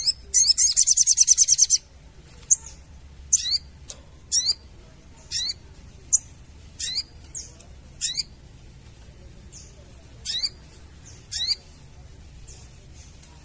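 A sogon bird's rapid, high chattering call (crecetan) for about a second and a half near the start, followed by single short, sharp call notes, each a quick high sweep, roughly one a second.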